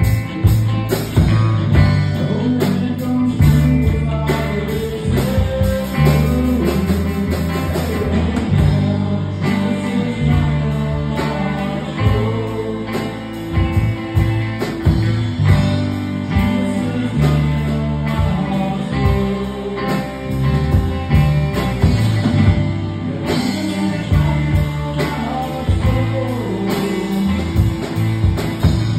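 Live rock band playing: electric guitars, bass guitar and drum kit, with a man singing lead vocals over them.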